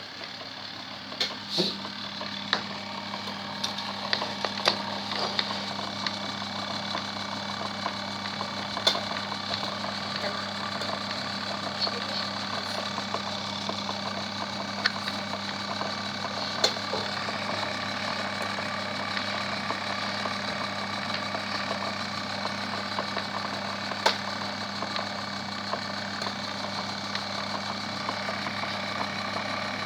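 Easymax mini washing machine running: a steady motor hum under a churning noise that builds over the first few seconds, with an occasional sharp knock.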